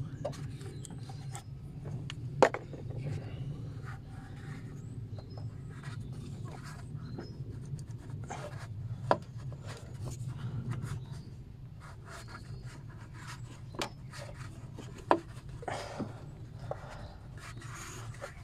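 Hand work on engine hoses and fittings: scattered clicks, knocks and rubbing as hoses and clamps are handled. A sharp knock comes about two and a half seconds in and another about nine seconds in, over a steady low hum.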